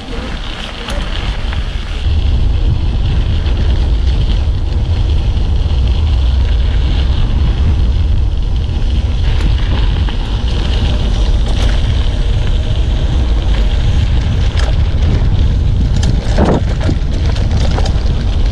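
Wind buffeting the microphone of a mountain bike's camera as it runs fast down a descent, over a deep steady rumble from the tyres on a rough road, with scattered knocks from the bike. The noise grows much louder about two seconds in as the bike picks up speed.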